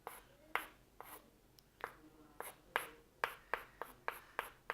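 A series of short, sharp clicks or taps, a few spaced out at first, then coming about three a second from about halfway on.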